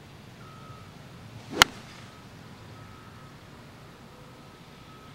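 A golf driver striking a ball off the tee: one sharp crack about a second and a half in, with a brief swish of the swing just before it.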